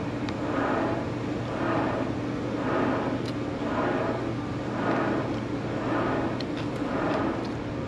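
A steady mechanical hum that swells and fades about once a second, with a few faint ticks over it.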